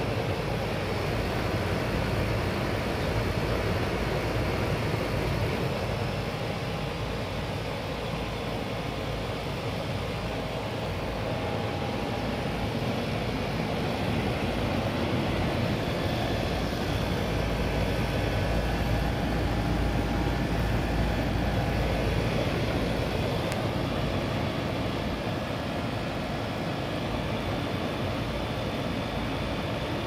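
Armstrong Air central air-conditioner outdoor condenser unit running: a steady whoosh of air through the condenser fan with a constant low hum underneath.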